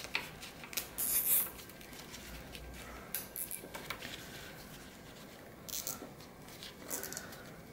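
Plastic cable ties being pulled tight, in a few short bursts of ratcheting clicks, with rustling from gloved hands handling the ties.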